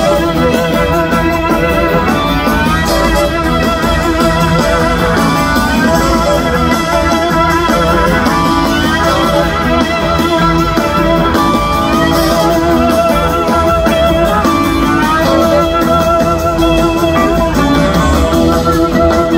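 Live band playing an instrumental passage: electric guitar lead lines with gliding notes over sustained organ chords.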